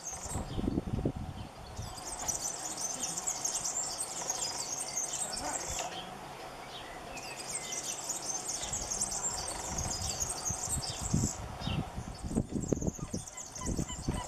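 Male European serin singing: two bursts of high-pitched, very rapid song, each about two seconds long, a couple of seconds in and around the middle, with a third starting near the end. Low rumbling noise comes at the start and again in the last few seconds.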